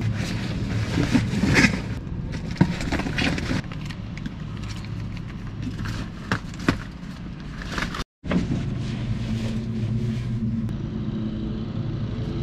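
A car driving: a steady engine hum and road noise, with scattered light clicks and knocks. The sound cuts out for a moment about eight seconds in.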